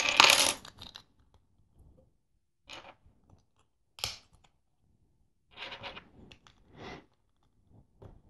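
Loose LEGO bricks rattling as a hand sorts through a pile of pieces, followed by a few separate, quieter plastic clicks and rustles as bricks are handled and pressed together.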